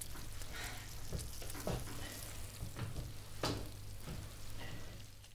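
Food sizzling in a frying pan for a fry-up, a steady hiss with several light knocks of a utensil or pan.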